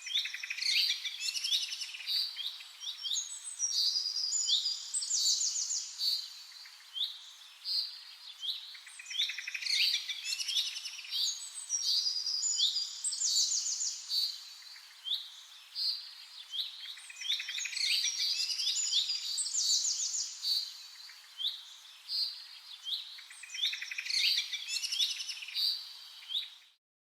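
Several birds chirping and singing at once in a busy chorus, with short whistled sweeps and quick trills overlapping; it cuts off suddenly near the end.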